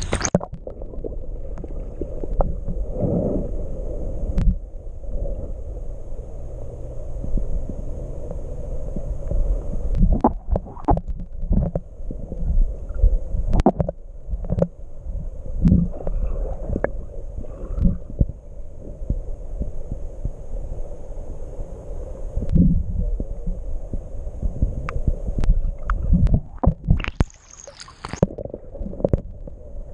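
Creek water heard from a camera held underwater: a muffled low rumble and gurgle with scattered knocks and clicks. Near the end the camera briefly breaks the surface, and brighter splashing hiss comes in for a second or two before it goes muffled again.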